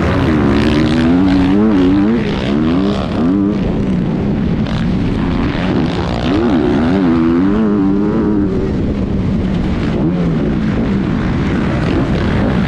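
Motocross dirt bike engine heard from the rider's onboard camera, revving up and falling back again and again over the track, with a rushing noise of wind over the engine.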